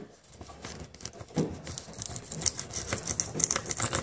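A small knife sawing and scraping at a plastic drinking straw, a quick uneven run of small clicks and scratches that gets busier toward the end.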